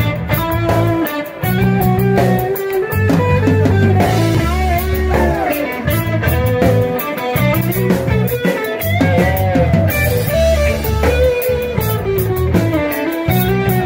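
A live rock band playing electric guitar, electric bass and drum kit, with a bending lead line over heavy bass notes and cymbal hits.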